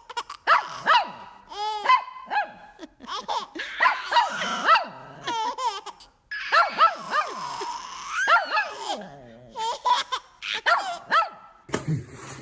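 A dog barking again and again, mixed with a baby's laughter and squeals.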